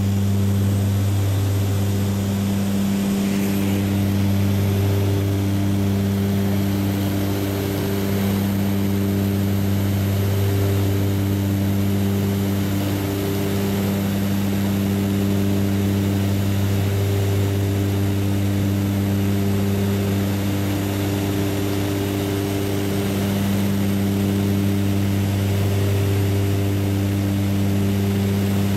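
Light propeller aircraft's engine and propeller drone heard from inside the cabin: a steady, even-pitched hum with a hiss over it, unchanged throughout.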